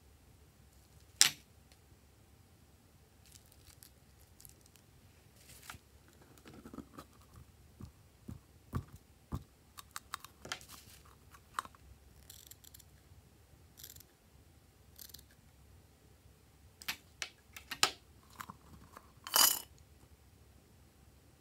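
Handling sounds of slime: scattered soft clicks and sticky crackles as slime is poured into a glass dish and squeezed out of a rubber balloon, with a sharp click about a second in and a longer squelch near the end.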